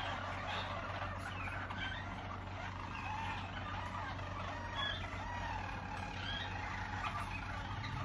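Harzer Roller canaries singing their rolling song, continuous low rolls with short rising-and-falling whistled notes, over a steady low hum.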